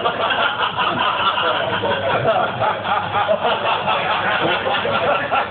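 Several people laughing and chattering over one another, a dense, unbroken hubbub of voices with no single clear speaker.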